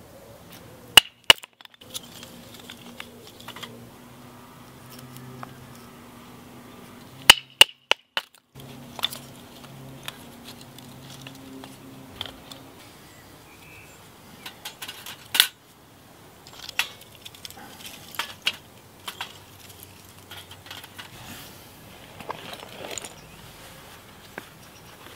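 Sharp wooden knocks and cracks as a stick is split into kindling with a knife on a tree stump: two about a second in, then a quick run of four about seven seconds in. Lighter clicks and clatter follow as the split sticks are handled and laid down.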